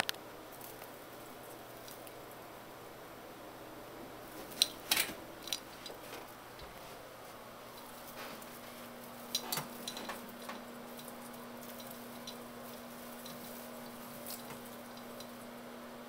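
Light clicks and rattles of an artificial Christmas tree's branches and hanging ornaments as a cat climbs through it, in two short clusters about five and ten seconds in, over quiet room hiss.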